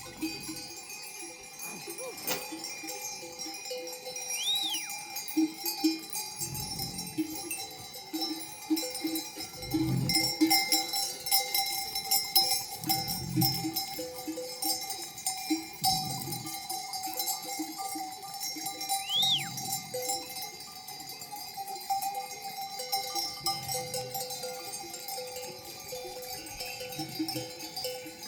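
Bells on a grazing flock of sheep clanking and jangling continuously, with sheep bleating now and then.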